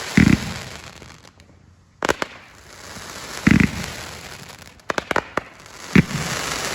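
Aerial fireworks: shells leave their tubes with sharp launch thumps and burst overhead a second or so later with deep booms, three booms in all, with a hissing crackle between them.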